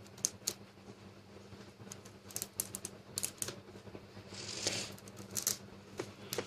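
Light clicks and rattles of hard plastic toy parts being handled, in small clusters, with a couple of short rustles: the snap-on plastic wings being taken off a toy pony.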